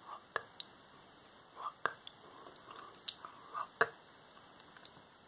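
Soft whispering close to the microphone, broken by a few sharp, wet mouth clicks spaced a second or so apart.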